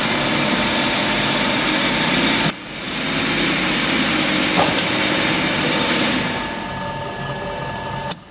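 Electric gearmotor of a sawmill log deck's feed drive running with a steady whine and hum, switched from a pendant control. It stops briefly about two and a half seconds in, starts again, drops in level near the end and cuts off suddenly just before the end.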